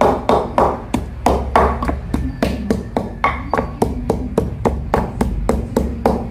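Steady, rapid chopping, about three even strokes a second, each a sharp knock with a heavy thud.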